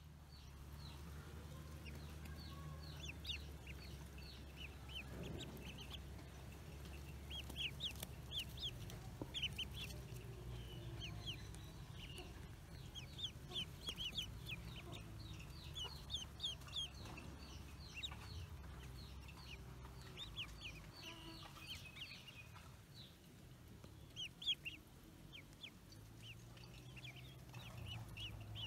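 Ducklings peeping: many short, high peeps overlapping, several a second, over a faint low steady rumble.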